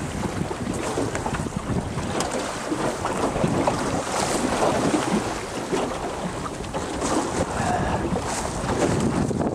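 Wind buffeting the microphone over the steady rush and slap of choppy water along the hull of a small SCAMP sailboat under way.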